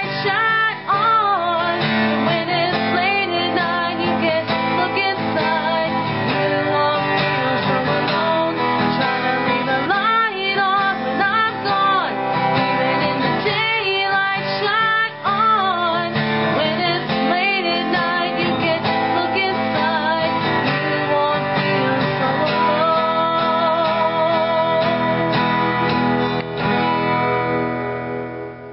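Acoustic guitar strummed under a woman singing a slow pop-rock song. Near the end she holds a long wavering note, and the music fades out.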